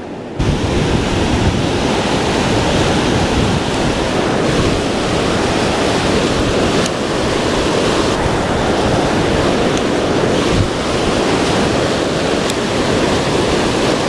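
Loud, steady rush of a waterfall's whitewater rapids pouring over rocks, heard close up. It starts abruptly about half a second in.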